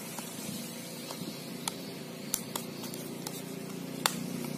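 Light plastic clicks, about seven in all, as fingers prise the snap-on back cover off a Huawei E5573 pocket Wi-Fi modem, over a steady low hum.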